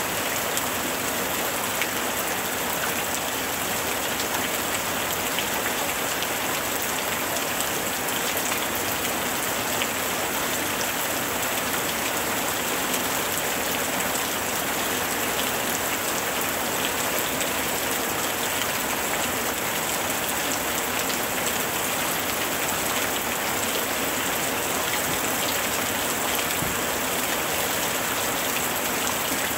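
Steady rain: an even hiss dotted with fine drop ticks, unchanging throughout.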